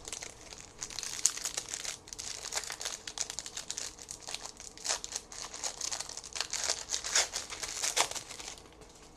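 Wrapper of a trading-card pack crinkling and tearing as it is opened by hand, a dense run of crackles that stops near the end.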